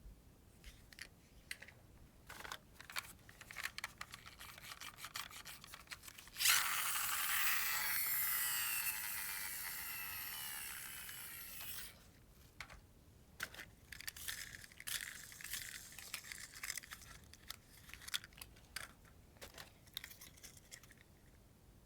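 Toy packaging being handled, with small crinkles and clicks. About six seconds in, a loud continuous noise starts suddenly, fades gradually and stops about five seconds later.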